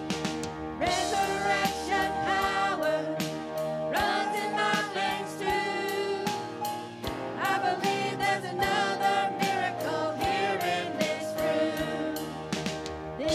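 Live worship band: several singers on microphones with acoustic guitar over a steady beat, performing a contemporary worship song.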